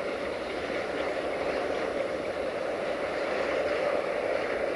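Freight train of tank wagons pulling away over the station tracks: a steady rolling noise of wheels on rail, with the 060-DA (LDE2100) diesel-electric locomotive working at its head.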